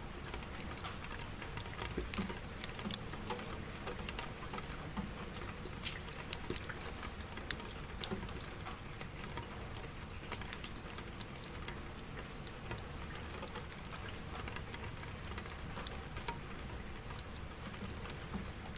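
Steady rain falling, with many individual drops pattering and clicking sharply throughout.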